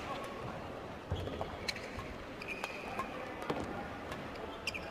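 Badminton arena ambience between rallies: a steady low crowd murmur with scattered small clicks and a few short high squeaks of shoes on the court.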